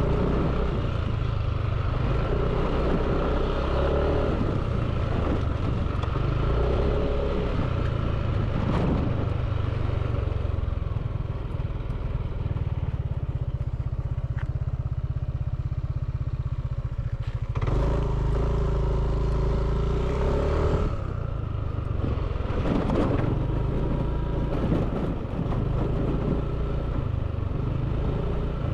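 Drone motors and propellers buzzing over a low rumble. The pitch shifts up and down with the throttle and eases for a few seconds midway.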